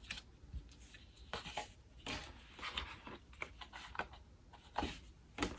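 Handling noise from A4 photo prints being shuffled and laid down: irregular light rustles and soft taps, a few a second.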